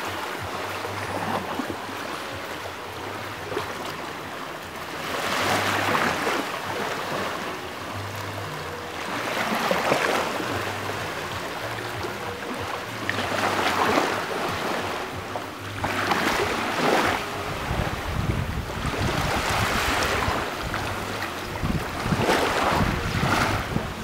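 Small waves breaking and washing up a pebble beach among rocks, the surf swelling every three to four seconds. Wind rumbles on the microphone in the second half.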